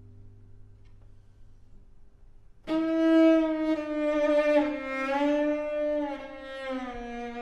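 Solo cello: a low sustained note holds quietly, then about two and a half seconds in a loud bowed note comes in. Its pitch bends and wavers in small microtonal slides and settles lower near the end.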